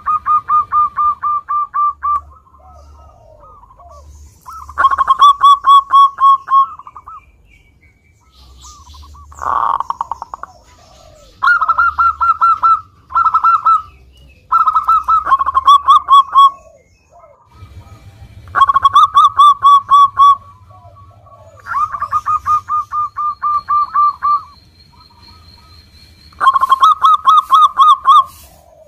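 Local zebra dove (perkutut) in full song: phrase after phrase of rapid staccato cooing notes, each phrase one to two seconds long with short pauses between.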